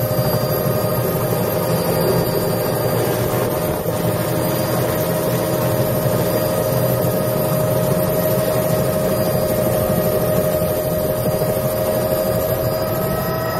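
Helicopter turbine engine and rotor running at idle on the ground, heard from inside the cabin: a steady high whine over a low rumble.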